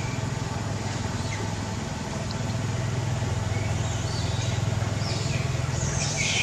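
Steady low rumble of an engine running, with a fast, even pulsing.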